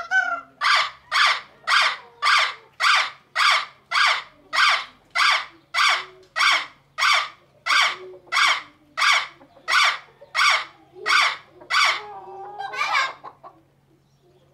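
Parrot squawking in a long, even series of about twenty harsh calls, just under two a second. It ends with one longer, drawn-out call about thirteen seconds in.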